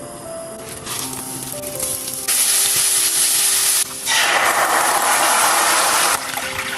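Food sizzling in hot oil in a pan, in two loud spells, the first starting about two seconds in and the second, after a brief break, stopping about six seconds in. Soft background music with held notes plays underneath.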